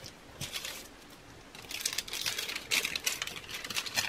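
Dried tea bag paper being peeled off a crinkly plastic cereal-box liner: a brief crackle about half a second in, then about two seconds of crinkling and rustling of the plastic.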